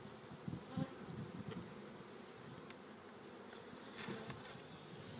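Honey bees humming around an open hive box, with single bees buzzing close by now and then. A few faint clicks are also heard.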